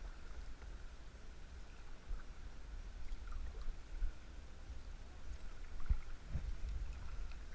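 Kayak being paddled on a river: paddle strokes in the water under a steady low rumble of wind on the camera microphone, with two knocks about six seconds in, half a second apart.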